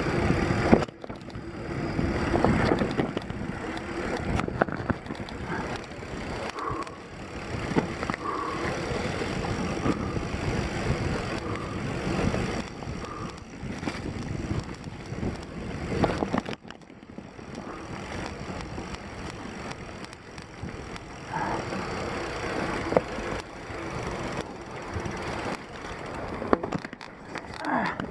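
Mountain bike rolling fast down a dirt singletrack: tyre noise on the trail with a constant rattle and clatter from the bike over roots and bumps, broken by sharp knocks. It goes quieter for a while about two-thirds of the way in.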